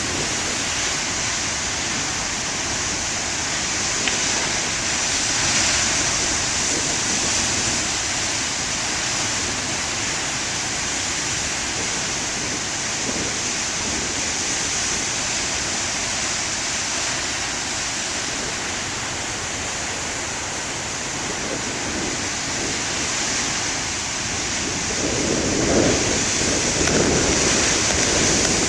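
Heavy ocean surf breaking on the shore: a steady wash of noise that swells about five seconds in and again near the end as bigger waves crash.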